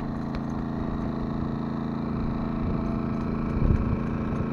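An engine running steadily, a low hum of several held tones over a rough background noise.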